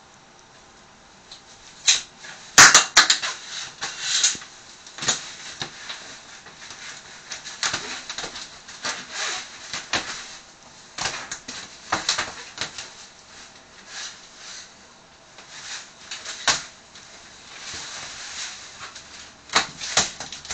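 Shower curtain rustling and scraping as a cat climbs and hangs on it by its claws, in irregular bursts, with a few sharp clicks about two and a half seconds in.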